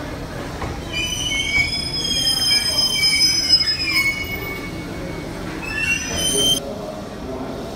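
SAT721 series electric train rolling slowly past with a low running rumble. Its wheels squeal in several high, shifting tones for about three seconds, then again briefly near the end.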